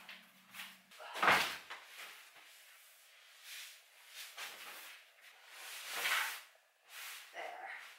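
Several separate handling noises, short rustles and knocks a second or two apart, the loudest about a second in.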